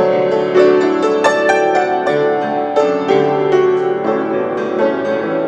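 Solo piano playing a Vietnamese Protestant hymn tune, notes struck singly and in chords, each ringing and fading.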